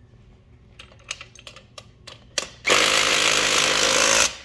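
Cordless drill with a socket running a bolt down tight for about a second and a half, starting a little past halfway and stopping sharply. A few light clicks of the socket on the nut come before it.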